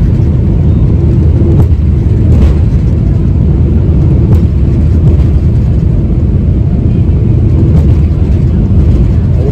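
Loud, steady low rumble of an airliner's jet engines and rushing air, heard from inside the cabin during the climb after takeoff.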